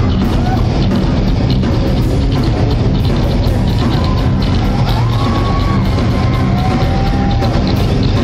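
Live thrash/death metal band playing at full volume, recorded from the crowd: distorted guitars, bass and fast drums in one dense, continuous wall of sound, with a few sliding high notes about halfway through.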